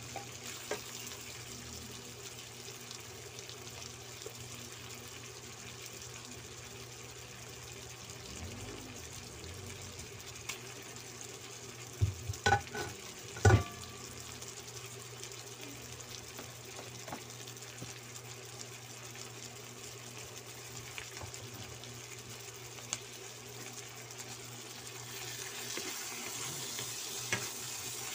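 Chicken pieces sizzling steadily in a nonstick wok over a low, steady hum, with a few sharp knocks about twelve to thirteen seconds in. The sizzle grows louder near the end as a wooden spatula stirs the pan.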